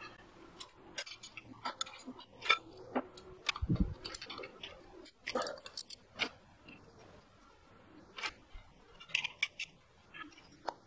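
Irregular metallic clicks and taps of a wrench working the timing-belt tensioner bolt on a Honda GL1100 engine, with a low thump about four seconds in.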